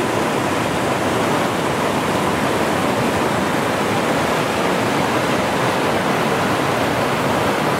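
Whitewater rapids rushing steadily as the river pours over rock ledges.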